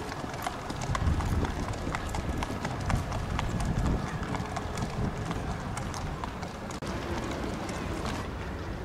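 Shod racehorses walking, their hooves clip-clopping in a loose, overlapping scatter of sharp clicks as several horses are led in hand.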